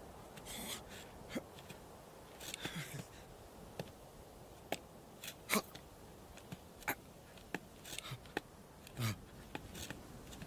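Sparse light clicks and taps with brief scraping rustles over a low hiss, and a few short squeaky blips, one about nine seconds in.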